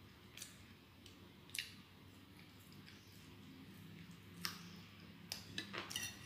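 Quiet eating sounds of a person chewing French fries, with scattered sharp clicks and taps and a quick run of them near the end.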